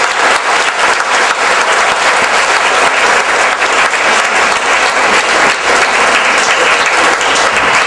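Audience applauding: many hands clapping in a loud, steady, dense patter at the end of a talk.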